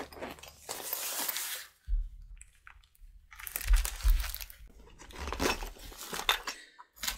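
Small nylon organizer pouch being unzipped: two long zipper rasps, then fabric rustling and light clicks as the pouch is opened out and its contents handled.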